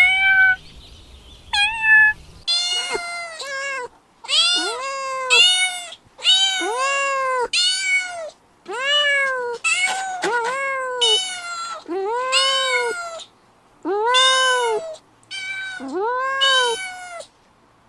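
Kitten meowing over and over, a long run of loud, high cries that each rise and fall in pitch, with a few short, higher chirps at the start.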